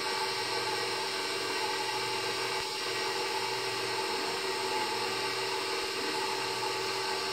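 KitchenAid stand mixer's motor and gear drive running steadily at an even pitch, turning the spiralizer attachment as it spiral-cuts a zucchini.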